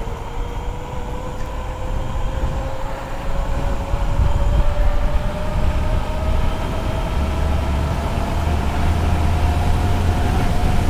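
Electric motor of a Power Goat V2 e-moped whining under way, its pitch rising slowly and steadily as the moped gains speed, over a low rumble of wind and road noise.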